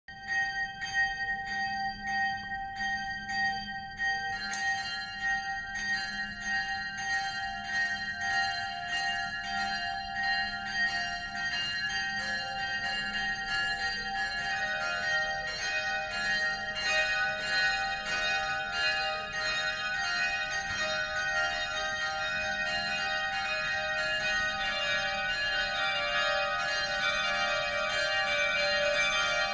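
Würzburg Cathedral's church bells ringing in a steady swinging peal. More bells join about four seconds in and again around twelve and fifteen seconds, building to a dense, full peal.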